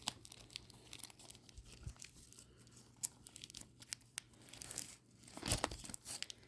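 Crinkling and rustling of a mystery blind-bag's packaging being handled and pulled at to tear it open by hand, in irregular crackles with a louder rustle near the end. The bag is not giving way: scissors are fetched for it right after.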